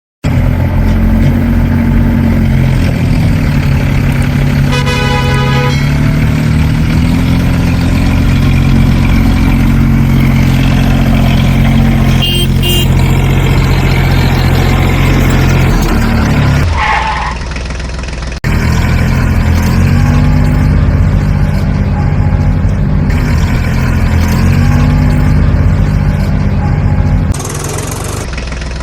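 Heavy truck engine running and revving, its pitch rising and falling. It breaks off briefly partway through, then drops to a quieter idle near the end.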